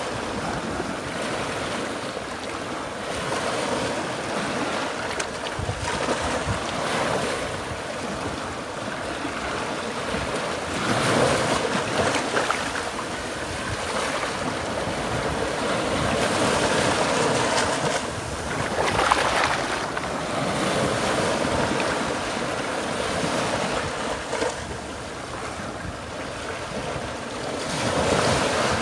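Small Gulf of Mexico waves washing up the sand and swirling around rocks at the water's edge: a steady wash of surf that swells louder each time a wave comes in.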